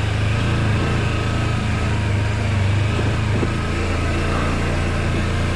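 Kawasaki Versys-X 300's parallel-twin engine running at a steady pitch under load as the motorcycle climbs a rutted dirt trail.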